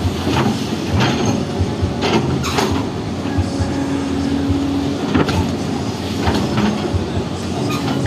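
Excavator diesel engine running under load, with a steady low rumble and a hum that shifts pitch now and then, broken every second or so by sharp metallic clanks and knocks from the working arm.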